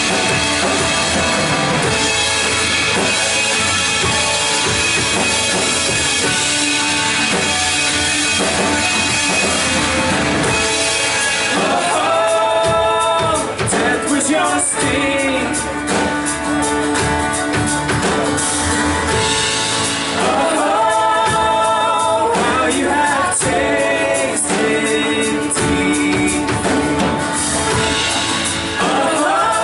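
Live worship band playing a song with drum kit, and a voice singing in phrases that come in about twelve seconds in and return twice more.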